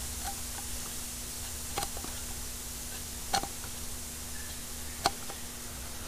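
Three short sharp clicks about a second and a half apart as cut-down wire crimping pliers are squeezed on the rim of an aluminum intercooler charge pipe to press in a hose bead, over a faint steady hum.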